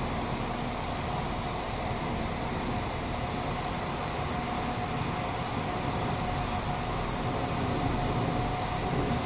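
Irish Rail diesel passenger train running slowly through the station approach: a steady drone with a constant whine, growing a little louder near the end as the train comes closer.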